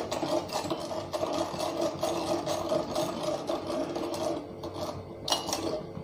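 Steel spoon stirring sugar syrup in a small stainless-steel saucepan, scraping and clinking against the pan in a rapid, continuous rasp.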